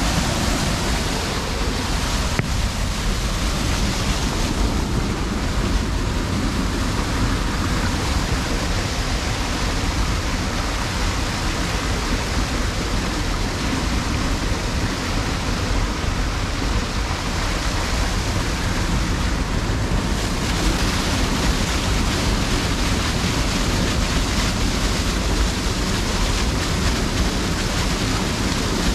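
Steady rushing noise with a heavy low rumble.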